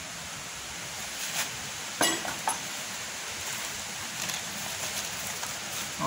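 Steady rush of running water, with a few short rustles and clicks as plastic litter is handled; the loudest click comes about two seconds in.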